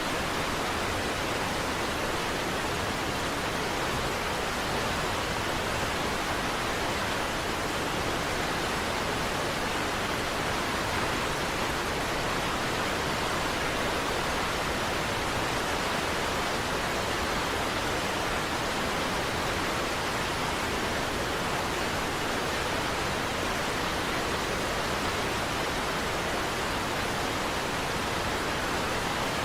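Steady rushing of the Niagara Falls waterfall: an even wash of falling water with no change in level.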